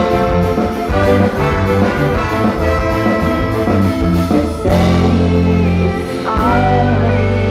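Live reggae-ska band playing an instrumental passage without vocals; about two-thirds of the way through, the busy playing gives way to long held chords over a sustained bass note.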